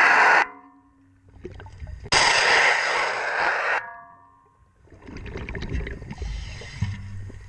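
Scuba diver's regulator underwater: loud rushing bursts of exhaled bubbles that start and stop sharply, one cutting off just after the start and another lasting about a second and a half from about two seconds in, with a softer low rush in between.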